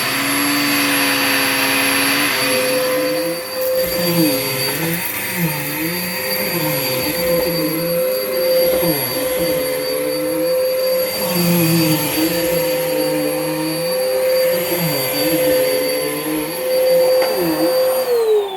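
2013 Bissell Powerforce Helix bagless upright vacuum running with its suction restored after a repair. A steady motor whine carries a lower tone that wavers up and down about once a second.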